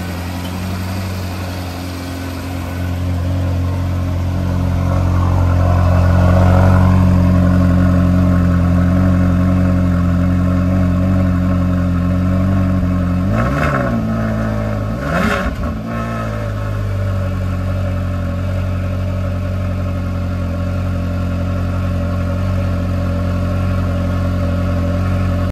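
2010 Ferrari California's 4.3-litre V8 idling steadily just after a cold start, heard at the quad exhaust tips. About halfway through it is revved twice in quick succession, the pitch rising and falling each time, then settles back to a steady idle.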